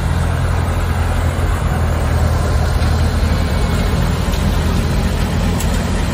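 Antique farm tractor engines running steadily at slow parade speed as the tractors pass close by: a steady low rumble.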